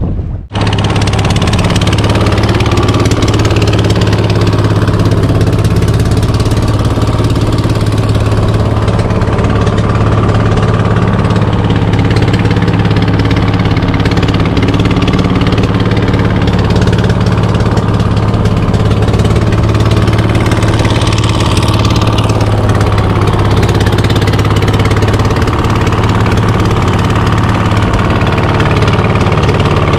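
Fishing boat's diesel engine running steadily at a constant speed, a loud even hum.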